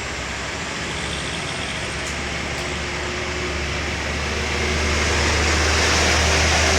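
Heavy vehicle's engine running with a steady low drone and rolling noise, growing louder over the last couple of seconds as it draws closer.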